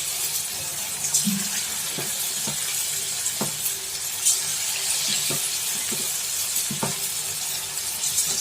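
Hot oil sizzling in a kadai as batter-coated marinated chicken pieces are dropped in one at a time to fry, with light clicks and taps at irregular intervals.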